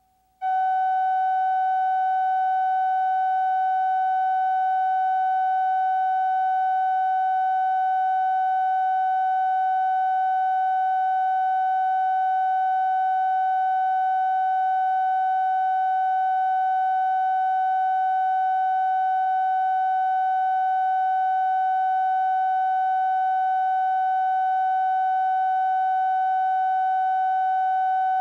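Steady single-pitch test tone from a videotape's bars-and-tone line-up leader, with faint overtones. It cuts in abruptly about half a second in and then holds without change.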